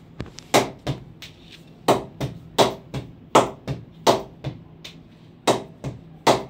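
Leather cricket ball bounced repeatedly off the face of a grade 1 Kashmir willow cricket bat (RNS Atomic), giving a run of sharp wooden knocks at an uneven pace of about one to two a second, some louder and some lighter. The knocking tests the bat's ping, or "punch".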